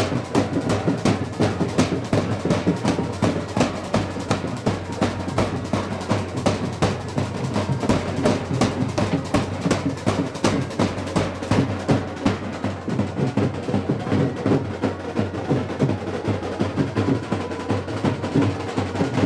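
Wedding band drums: a large bass drum and snare drums beaten together in a fast, steady rhythm.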